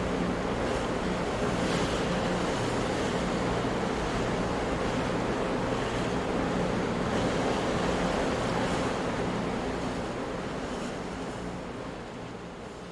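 Big ocean waves breaking, a continuous wash of surf that fades out over the last few seconds.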